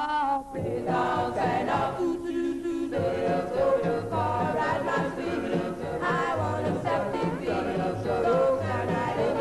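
Music with a group of voices singing in harmony over a bass line.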